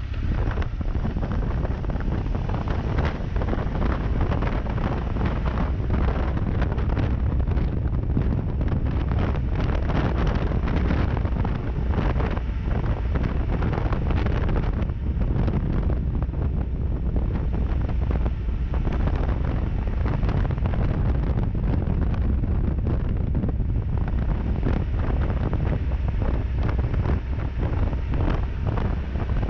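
Wind buffeting the microphone of a rider-mounted camera on a moving Triumph Tiger 1200 motorcycle, with the bike's three-cylinder engine running steadily as a low rumble beneath it.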